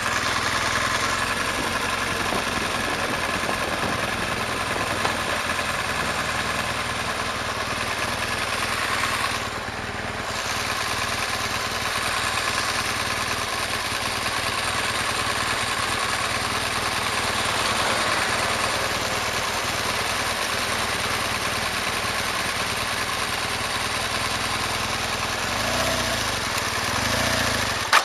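BMW R1200GS boxer-twin motorcycle engine running steadily under a constant rush of noise, easing off briefly about ten seconds in.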